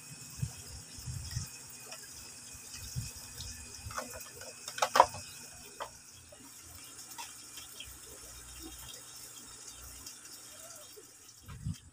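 Water running and trickling steadily from a hose into an aquarium tank during a water change, with a few sharp knocks of a pump and plastic box being handled about five seconds in.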